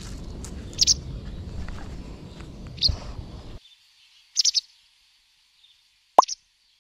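Small birds chirping, a few short high chirps spread out, then a sharp falling note near the end. A low rumbling background noise stops abruptly about halfway through.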